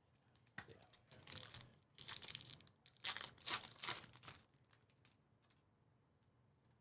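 Trading-card pack wrapper being torn open and crinkled, in several irregular rustling bursts over the first four seconds or so.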